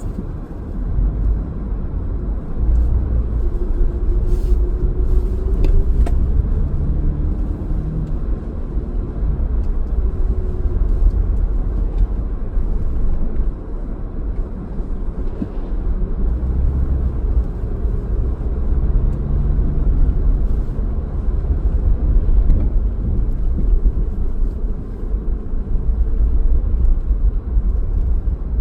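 Car driving along: a steady low rumble of road and engine noise, with a few faint clicks about four to six seconds in.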